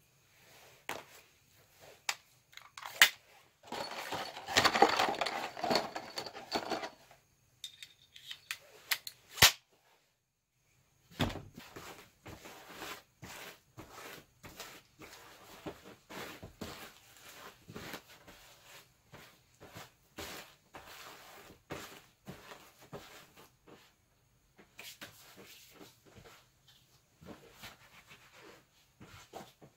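Plastic cling film crinkling and rustling as hands rub and smooth it over a wrapped foam seat, in many small irregular crackles, with a few sharp clicks and a short pause about ten seconds in.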